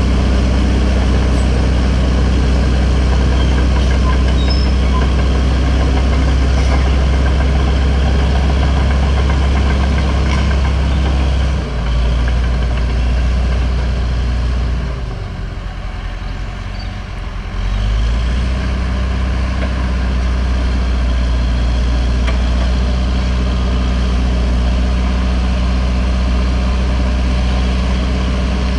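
Caterpillar D4H crawler dozer's diesel engine running steadily with a deep, even drone. About halfway through it drops back for roughly three seconds, then picks up again.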